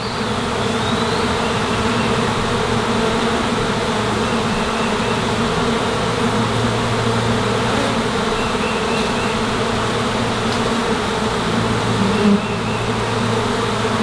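Dense, steady buzzing of a honey bee swarm flying all around at close range, with one bee briefly louder about twelve seconds in.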